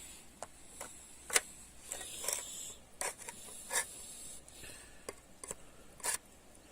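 Handling noises: a scattered series of light clicks and knocks with short scrapes in between, the sharpest knock about a second and a half in.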